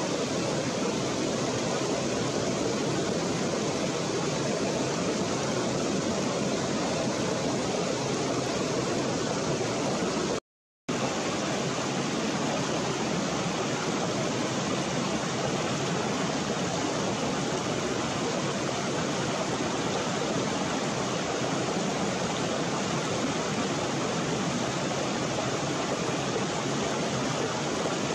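Shallow rocky stream running steadily over stones, an even rush of flowing water. It cuts out for a split second about ten seconds in.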